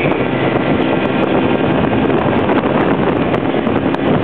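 Small motorboat running steadily at speed: a constant engine drone mixed with wind buffeting the microphone and water rushing past the hull.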